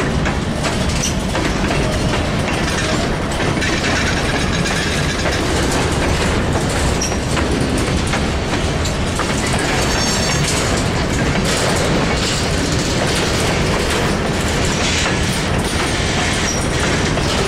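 Freight train of covered hopper cars rolling past close by: a steady rumble of steel wheels on rail, with clicks as the wheels cross rail joints. A short high wheel squeal comes about ten seconds in.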